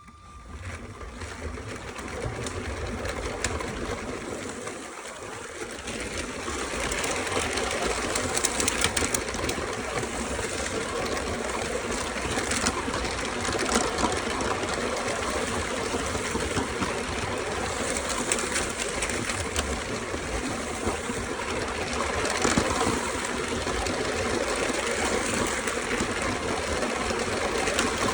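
Lego City toy train running on its plastic track: a steady motor whir with many small wheel clicks.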